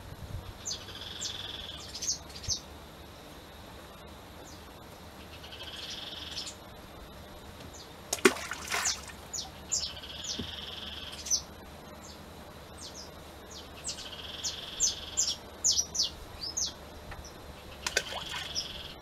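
Balls of rice-bran groundbait splashing into the river, once about eight seconds in and again near the end, while birds chirp and call over and over.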